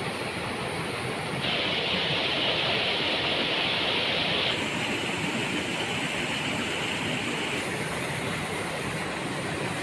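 Steady roar of a waterfall, a constant rush of falling water whose hiss abruptly brightens and dulls a few times.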